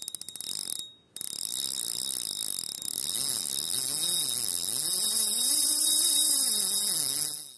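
Logo intro sound effect: a rapid, even ticking for about a second, a brief cut, then a steady high hiss with low tones sliding up and down, fading out near the end.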